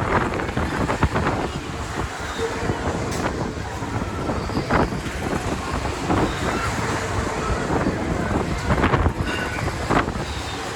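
Wind rushing over the microphone on a PWS Super Trooper fairground ride in motion, with scattered knocks and rattles.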